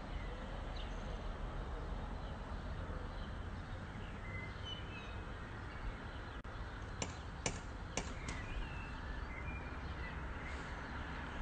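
A cat pawing at a front-door knocker, making four sharp knocks in quick succession a little past the middle, over a quiet background of birds chirping.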